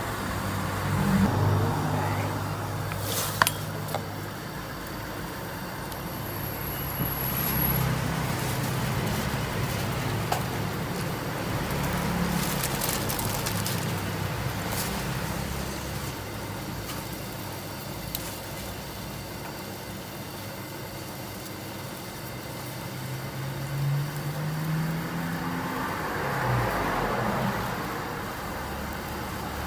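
Motor traffic passing close by: engines rise and fade over a steady background hiss, and one engine climbs in pitch as it speeds up late on. A few sharp clicks cut through now and then.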